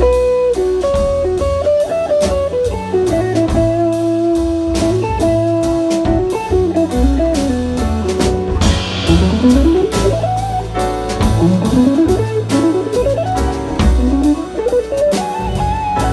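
Electric guitar solo in a slow blues over upright double bass: long held and bent notes first, then several quick rising runs up the neck.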